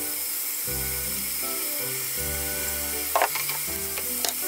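Background music with a bass line and melody over a steady faint sizzle of pork and vegetables frying in a pot, with a couple of sharp clicks about three seconds in and near the end.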